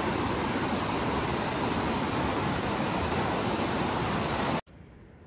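Loud, steady rushing noise that cuts off abruptly near the end.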